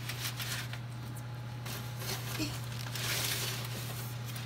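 Aluminium foil crinkling and oven mitts rustling as a foil-covered plate is slid out of an oven, with a slightly louder stretch of rustling about three seconds in, over a steady low hum.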